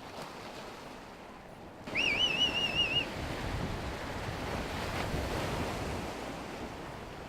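Big-wave surf breaking with a steady rush of water and wind buffeting the microphone, growing louder about two seconds in. Over it, a shrill whistle rises and then wavers for about a second.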